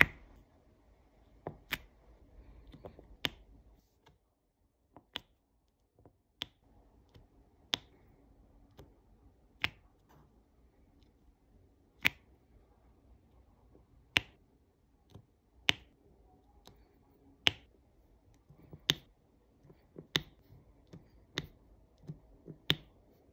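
Diamond painting drill pen pressing resin drills onto the adhesive canvas, one sharp click each time a drill is set, about every second or two.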